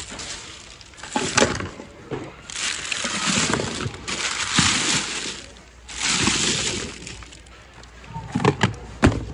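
Rummaging through a bin of mixed goods: a plastic bag and wrapping paper crinkling and rustling in three long spells, with sharp knocks and clinks of hard items about a second in and again near the end.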